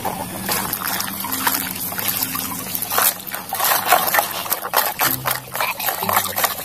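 Muddy water splashing and sloshing in a bucket as a toy truck is swished and rubbed clean by hand, in a quick, irregular run of splashes that starts about half a second in.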